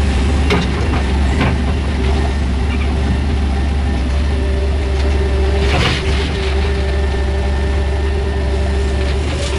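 JCB 3DX backhoe loader's diesel engine running steadily, heard from inside the cab while the backhoe loads soil into a tipper truck. A few brief knocks sound over it, the strongest about six seconds in.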